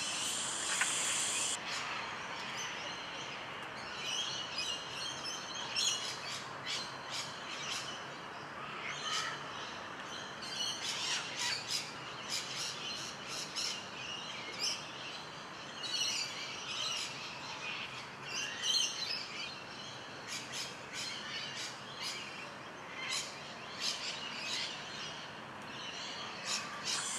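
Birds chirping in short scattered calls over a steady faint outdoor background hiss.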